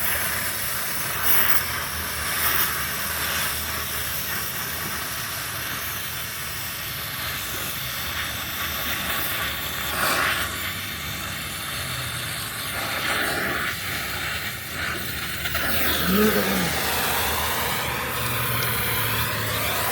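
Welding on a radiator clip: a steady hiss with occasional sharp crackles. A short rising-and-falling tone comes about sixteen seconds in.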